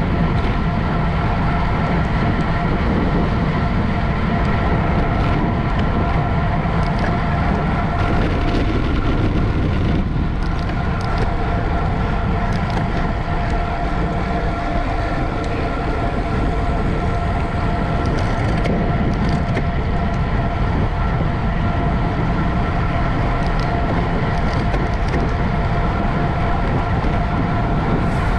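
Wind rushing over the microphone of a camera on a racing bicycle at speed, with a steady whine running under it and a few faint ticks.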